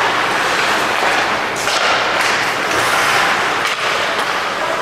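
Ice hockey game sound in a rink: a steady noisy wash of play and crowd, with a few short sharp sounds about one and a half to two and a half seconds in and again near the end.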